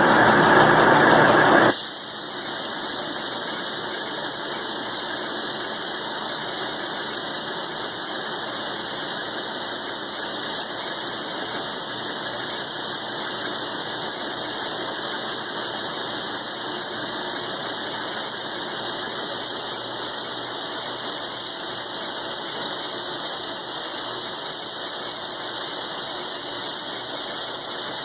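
Milling machine cutting steel plate with a roughing end mill: a steady high hiss and squeal. A louder, fuller stretch at the start drops off suddenly about two seconds in.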